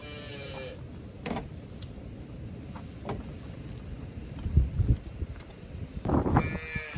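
Two short goat bleats, one right at the start and one about six seconds in, over rustling and scattered knocks and thuds in a barn pen.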